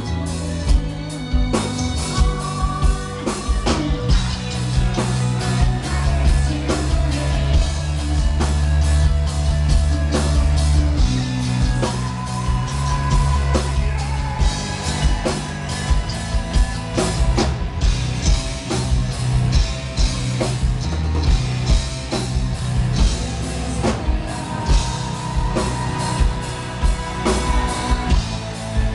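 Gothic metal band playing live through a club PA: female lead vocals over distorted electric guitars, heavy bass and a pounding drum kit, with a male voice joining near the end.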